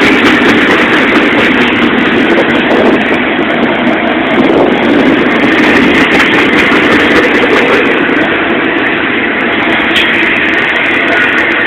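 Double-stack intermodal freight cars of a Florida East Coast Railway train rolling past, a steady, loud rumble of steel wheels on rail.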